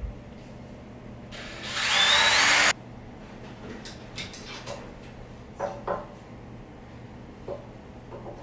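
A small drill boring a pilot hole for an eye hook in a wooden post, running for about a second and a half with a rising whine and stopping abruptly. It is followed by a few faint clicks and taps.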